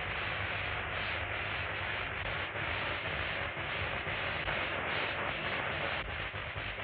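Steady electrical hiss and buzz with a low hum underneath, the sound effect of a laboratory transformation machine running on an old film soundtrack.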